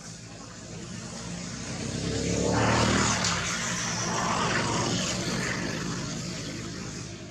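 A motor vehicle passing by: engine noise swelling to a peak about three seconds in, then fading away.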